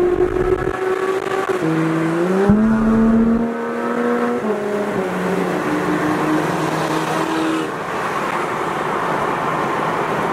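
A sports car's engine heard from inside the cabin at speed, its pitch stepping down and rising again with gear changes and throttle over the first few seconds, then holding steady. From about eight seconds in the engine note fades under steady road and wind noise.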